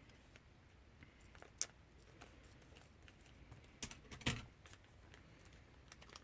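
Faint handling clicks and taps of a coin being worked out of its plastic packaging: a sharp click about one and a half seconds in, then a cluster of louder clicks around four seconds in.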